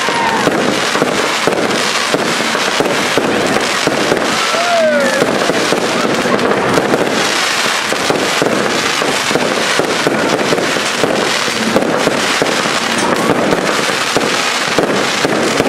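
Firework cakes (pre-fused batteries) firing a dense, unbroken stream of shots and star bursts, one quick report on top of another.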